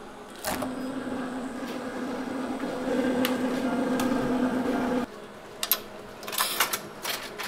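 Steady electric hum of a mug refrigerator standing open, with a few light clinks of chilled glass beer mugs being handled; the hum cuts off suddenly about five seconds in. Then coins click into the coin slot of a draft beer vending machine.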